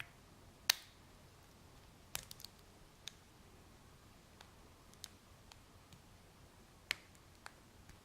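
Faint, sharp metallic clicks of a lock pick and tension wrench working the pin stack of an American Lock 1105 six-pin padlock, coming irregularly: one strong click about a second in, a quick cluster around two seconds, and another strong one near the end.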